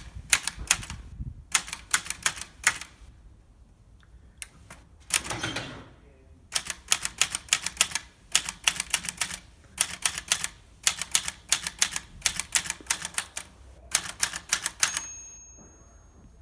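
Olivetti Lettera 32 portable typewriter being typed on in quick runs of keystrokes. About five seconds in there is a longer sliding, ratcheting sweep like the carriage being returned. Near the end a bell rings once, the typewriter's end-of-line bell.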